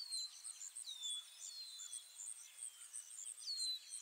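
Outdoor bird and insect calls: a high falling note repeated every second or so, over a fast, even, high-pitched chirping.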